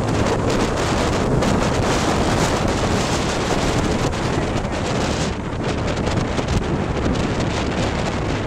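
Heavy wind buffeting the microphone of a motorcycle on the move, with a BMW R1200GS's boxer-twin engine running underneath.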